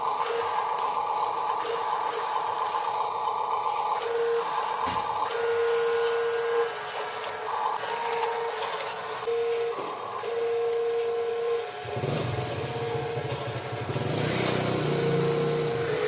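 Small electric motors and gearboxes of radio-controlled metal construction models running, a dump truck and an excavator, with a steady whirring. A steady whine switches on and off in short spells as the controls are worked, and a lower rumble joins about twelve seconds in.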